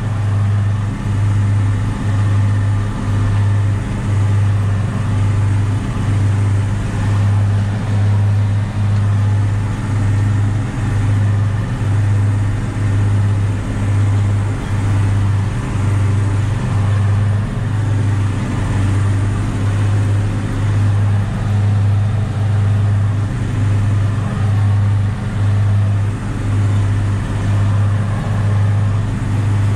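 Massey Ferguson 6180 tractor's straight-piped six-cylinder diesel running steadily under mowing load, heard from inside the cab. It is a loud, deep drone that swells and dips about once a second.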